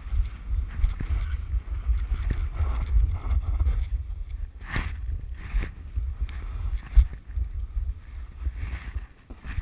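Wind buffeting on the camera microphone as a snowboard runs down the slope, with the board hissing and scraping over the snow. There are a few sharper scrapes about halfway through, and the sound eases near the end.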